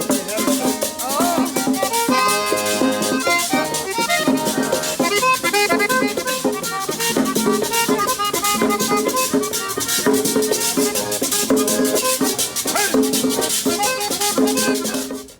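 Upbeat Latin music with a steady beat and constant shaker-like rattling percussion over pitched instrumental lines; it cuts off abruptly at the end.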